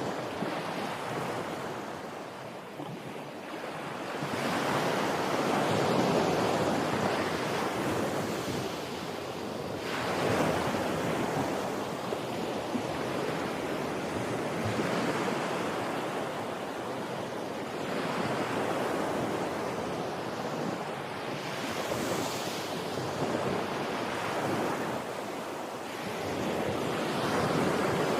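Ocean waves washing onto a beach, a steady rush of surf that swells and recedes every four or five seconds.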